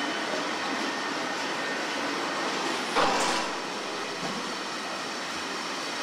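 Steady background noise of a factory floor. About three seconds in, a short, louder hiss fades out over half a second.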